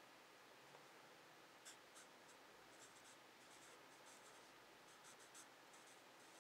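Felt-tip marker writing on a paper legal pad: faint scratchy strokes, starting a second or two in.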